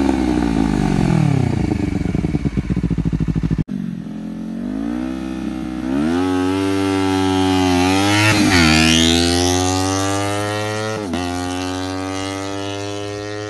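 Honda CBR250RR parallel-twin through a dual undertail exhaust: the revs fall away from a high rev, then after a cut the bike accelerates hard through the gears, the note rising and dropping back at each upshift, twice.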